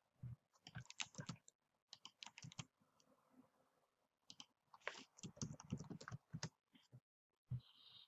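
Faint typing on a computer keyboard: a quick run of keystrokes in the first few seconds, a short pause, then a second run in the second half.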